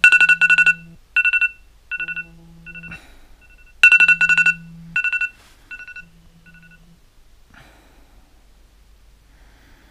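iPhone alarm ringing: clusters of quick repeated two-tone beeps over a low buzz that comes in pulses of about a second. It grows fainter and stops about seven seconds in as the alarm is silenced.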